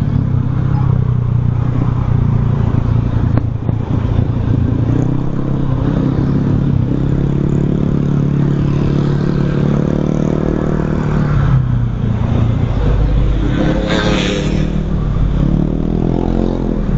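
Motorcycle engine running at a steady cruise with wind and road noise. About eleven seconds in its pitch drops as it slows, with a brief noisy burst a few seconds later, and near the end the engine picks up speed again.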